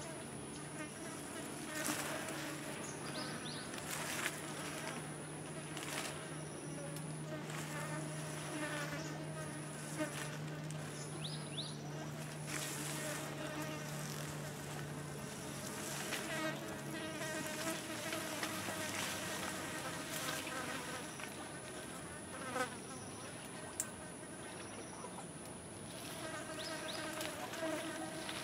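Insects buzzing: a fly droning close by for roughly the first half, over a steady high-pitched insect whine that breaks off now and then, with scattered short chirps.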